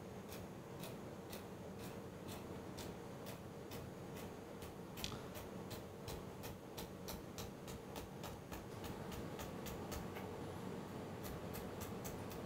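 Chef's knife dicing carrot into tiny brunoise on a plastic cutting board: quick, regular knife taps, about three or four a second, coming faster near the end.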